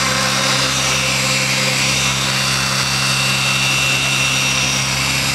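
Align T-Rex 600 electric RC helicopter hovering: its brushless motor and spinning rotors give a steady high whine over a low, even hum.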